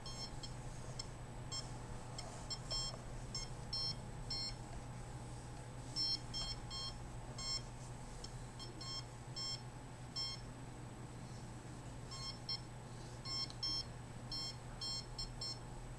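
Handheld meter's alarm giving short, high-pitched beeps in irregular clusters, signalling high readings, over a steady low hum.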